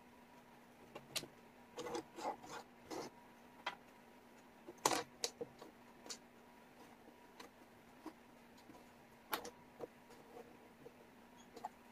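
Wooden jigsaw puzzle pieces clicking and tapping against each other and the tabletop as they are picked up, shifted and fitted, in irregular light taps, the sharpest about five seconds in and again a little past nine seconds.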